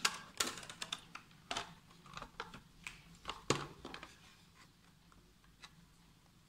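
Fingers handling a small cardboard pen box, picking at its flap and edges: irregular taps, clicks and scrapes of card, the sharpest in the first few seconds and thinning out towards the end.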